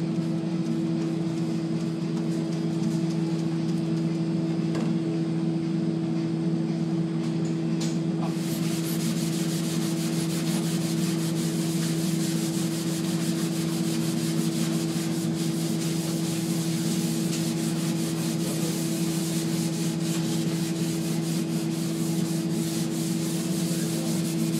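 Scrub pad rubbing back and forth over a degreaser-coated stainless steel backsplash, scouring off baked-on brown carbon. The scrubbing grows brighter and scratchier about eight seconds in, over a steady low hum.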